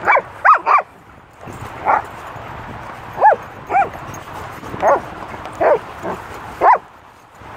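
Young dogs barking in play: about ten short, high yelping barks, each rising and falling in pitch, three in quick succession at the start and the rest spaced half a second to a second apart.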